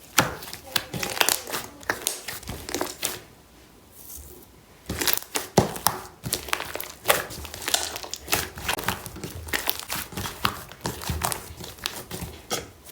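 Slime being squished and stretched by hand, making quick crackly clicks and pops. There is a pause of about a second and a half midway, then the clicking resumes.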